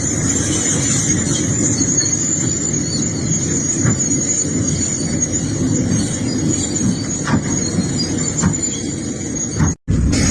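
Excavator working: a steady heavy machinery din with a constant high-pitched squeal over it and a few light knocks. It cuts out abruptly for an instant near the end, then carries on.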